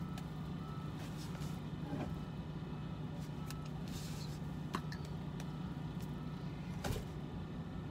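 Steady low hum of a vehicle heard inside its cab, with a couple of short sharp clicks, one about three-quarters of the way through and one near the end.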